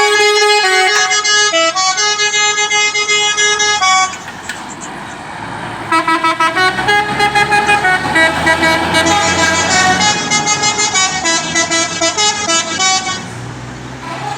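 Basuri 'telolet' multi-tone bus air horns playing a tune in stepped notes for about four seconds. After a lull of about two seconds, a quicker, pulsing melody plays for about seven seconds and stops shortly before the end.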